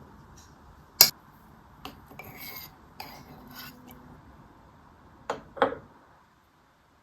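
Kitchenware being handled: a sharp clink about a second in, some scraping and light rattling, then two knocks in quick succession near the end.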